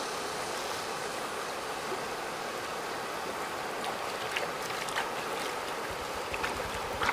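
Steady rushing noise with a few faint clicks about two-thirds of the way through.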